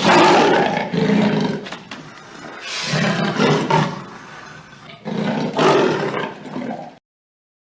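Leopard roaring in three rough bouts of about two seconds each, stopping about seven seconds in.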